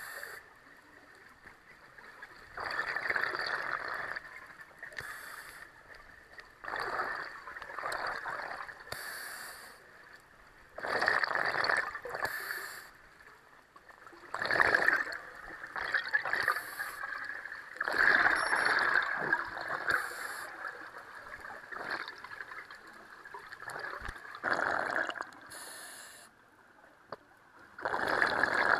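A scuba diver breathing underwater through a regulator: hissing inhales and bubbling exhales in bursts every few seconds, with quieter gaps between.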